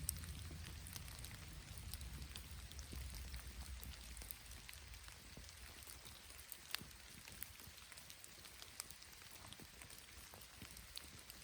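Light rain falling: many small scattered drip ticks over a soft hiss, with one sharper tick about seven seconds in. A low rumble fades away over the first few seconds.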